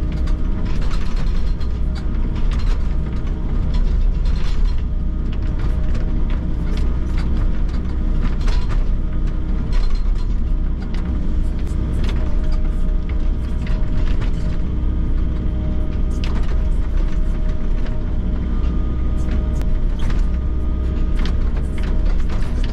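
Volvo excavator heard from inside the cab: the engine and hydraulics run steadily while the hydraulic breaker hammers concrete piles, with frequent irregular sharp knocks and cracks of steel on concrete.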